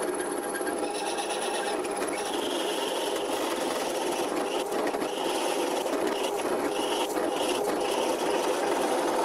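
Drill press motor running steadily while a spade bit bores into green oak, with a higher scraping that comes and goes as the bit cuts. The bit is labouring, more grinding a hole than drilling it.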